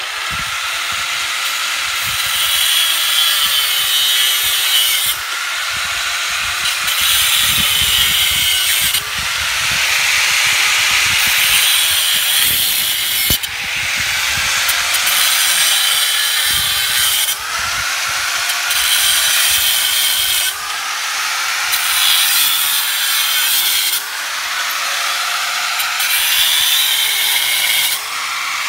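Corded angle grinder running continuously, its cut-off disc grinding through the steel wires of a welded-wire hog panel one after another. The motor note dips each time the disc bites into a wire and picks up again between cuts, every three or four seconds.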